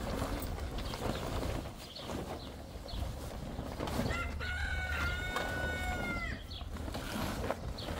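A rooster crows once, a drawn-out call lasting about two seconds that starts about four seconds in and drops in pitch at its end. Underneath, a heavy tent canvas rustles as it is dragged and folded.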